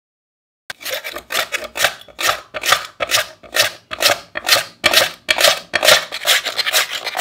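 Raw peeled potato slicing on a plastic mandoline slicer: the potato is pushed back and forth over the blade in regular scraping strokes, about two a second, each shaving off a thin slice. The strokes start just under a second in.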